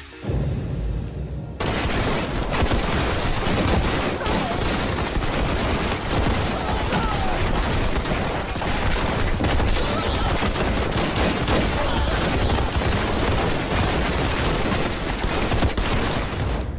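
Sustained automatic gunfire, a continuous rapid stream of shots from a heavy machine gun. It comes in loud about a second and a half in and runs without a break.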